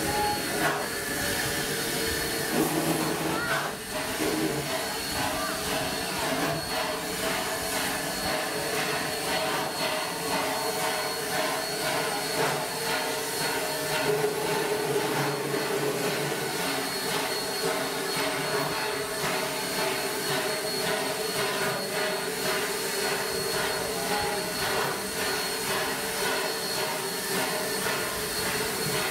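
1942 Baldwin S160 2-8-0 steam locomotive creeping forward at walking pace, with a steady hiss of escaping steam.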